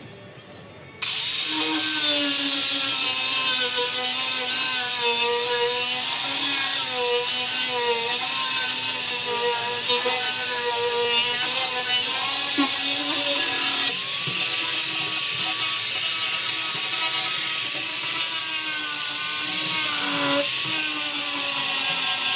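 Electric power grinder with a round disc grinding fiberglass, starting suddenly about a second in and running with a loud grinding hiss. The motor's pitch wavers as the disc bites and eases off, dipping briefly near the end.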